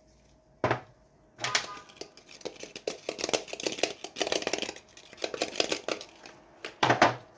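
Plastic spice shaker shaken over a plate of raw chicken strips: several seconds of rapid rattling taps, with a sharp click under a second in and louder clicks near the end.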